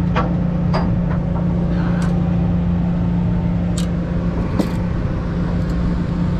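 Party boat's engine running with a steady low hum, with a few sharp clicks of fishing tackle and line being handled.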